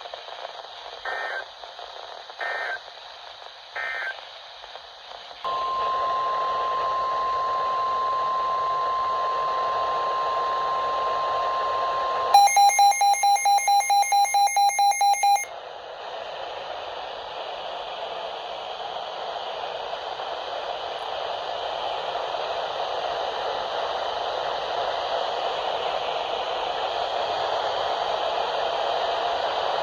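NOAA Weather Radio alert sequence. Three short digital data bursts are followed by the steady 1050 Hz warning alarm tone for about seven seconds. Then fast electronic beeping, about four a second, runs for about three seconds, and a steady radio hiss follows.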